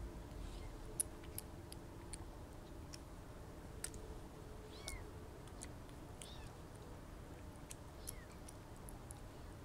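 Young kitten mewing faintly, a few short high mews from the middle onward, among small sharp clicks, while it is bottle-fed milk.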